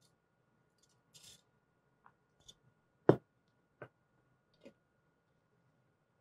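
Small plastic stitch markers rustling in a glass jar, a few faint ticks, then a sharp knock about three seconds in as the glass jar is set down on the table, followed by two lighter taps.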